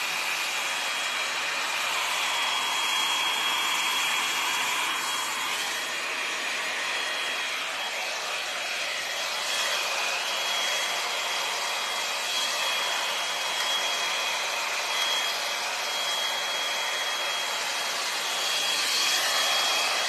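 L'ange Max Volume hot-air brush, a blow dryer with a round brush head, running steadily: an even airy whoosh with a thin high whine over it.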